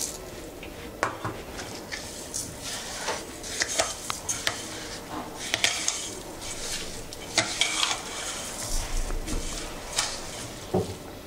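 Steel spoon stirring sugar into thick hung curd in a stainless steel bowl, with irregular scrapes and clinks of the spoon against the bowl.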